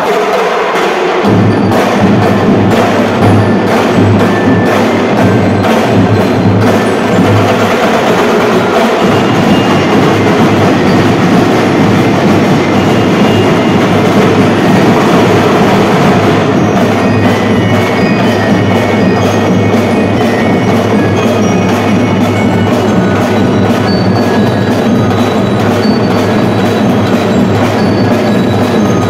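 Drum and bugle corps drum line playing a fast, steady marching cadence on snare, tenor and bass drums, with bright bell notes ringing over it. The full ensemble comes in about a second and a half in.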